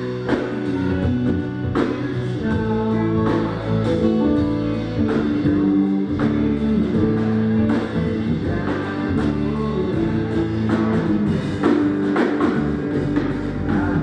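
Live rock band playing through the PA: electric guitars over a drum kit keeping a steady beat.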